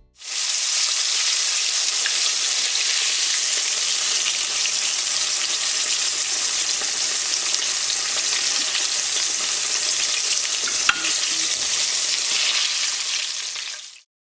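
Food frying in a hot pan: a steady sizzle, with one brief louder crackle about eleven seconds in.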